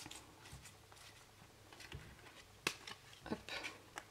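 Faint rustling and clicking of tarot cards being slid and rearranged in the hands, with one sharp click a little past halfway and a short flurry of rustles just after.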